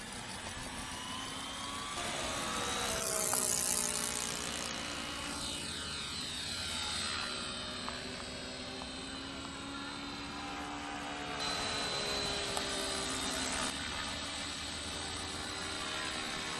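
OS FS120 Mk I four-stroke glow engine of a scale RC model plane running in flight, its note gliding up and down in pitch as the plane passes and turns.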